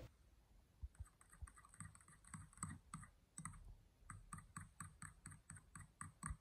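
Faint, quick clicking of a metal spoon against a glass bowl as a thick paste is stirred and beaten, about four clicks a second, starting about a second in.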